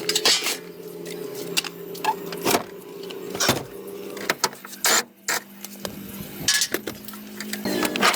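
Scattered sharp metallic clicks and knocks of hands and tools working on a car, over a steady low hum that drops out about five seconds in and returns near the end.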